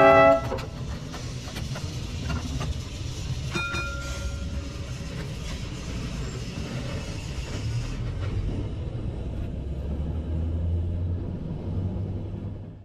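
Heritage tram running along the tramway: a steady low rumble with scattered clicks, fading out at the very end.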